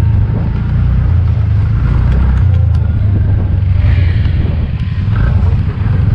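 Motorcycle being ridden over a rough dirt and stony track: a steady low rumble of the running engine and road noise.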